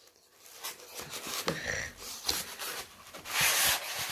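Polystyrene packing foam rubbing and scraping against a cardboard box as it is worked out, with scattered small clicks and a louder scratchy stretch about three and a half seconds in.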